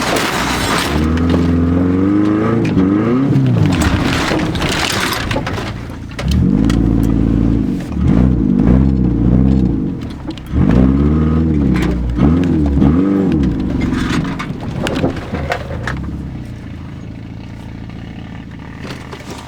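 Off-road vehicle engine revved hard in repeated surges, the pitch climbing and falling again and again, as it makes a run under load; after about 14 seconds it drops back to a lower, fading running sound.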